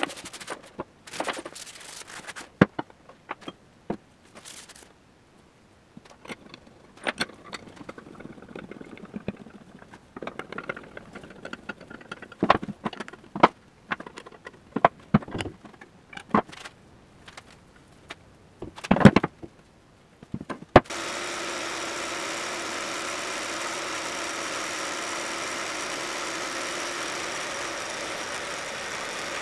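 Steel parts and tools clinking and knocking on a workbench as plates, gibs and bolts are handled and fitted, in scattered sharp clicks for about twenty seconds. Then a milling machine runs steadily with a face mill cutting steel, a constant machine noise with a few steady tones.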